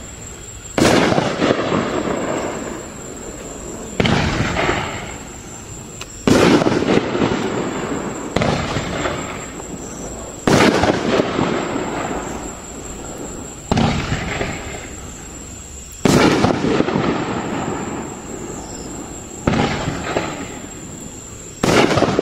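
A 2.5-inch, 9-shot consumer firework cake (Raccoon Fireworks Supreme Power) firing shot after shot: about nine sharp bangs two to three seconds apart. Each bang is followed by a noisy rush that fades away before the next.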